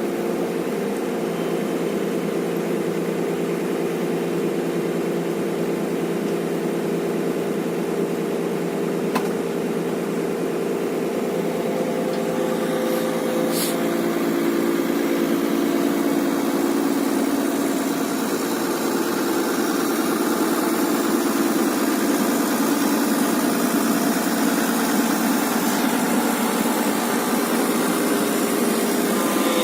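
Excavator engine running steadily, growing a little louder about halfway through.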